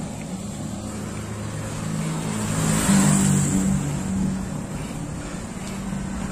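A motor vehicle's engine running close by, growing louder to a peak about three seconds in and then fading as it passes.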